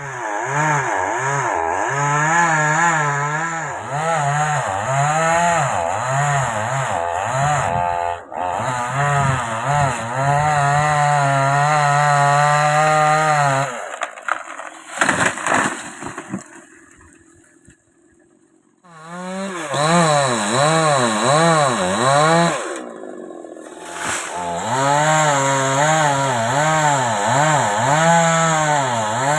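Chainsaw cutting wood, its engine pitch rising and falling again and again as the chain bites and frees in the cut. It stops about halfway through, leaving a few quieter seconds, then starts cutting again with one short break.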